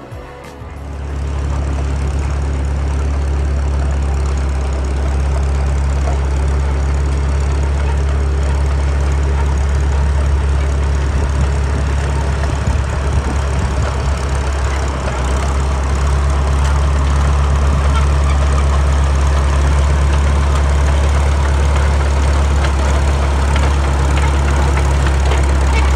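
Caterpillar D2 crawler tractor's four-cylinder diesel engine running steadily with a deep, even hum as the crawler drives along.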